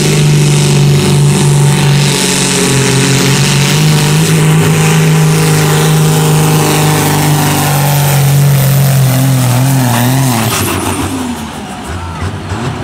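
Blue Ford farm tractor's diesel engine running at full throttle under heavy load, pulling a weight-transfer sled, its note held steady. About ten seconds in it wavers and backs off as the pull ends.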